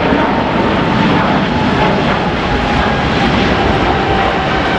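Boeing 777 freighter's twin GE90 turbofans at takeoff thrust, a loud steady roar as it climbs out just after lift-off, with a whining tone that slowly drops in pitch as the jet passes.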